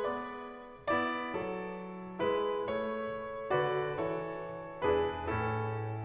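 Background music: a slow piano piece, chords struck about once a second and left to ring and fade.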